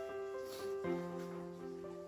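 Background music: a melody of held notes, joined a little under a second in by a low sustained note.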